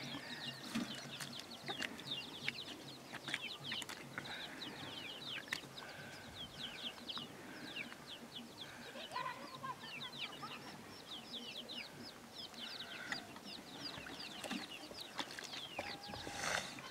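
Chickens clucking, over a steady chatter of quick, high, falling chirps. A brief, louder noise comes near the end.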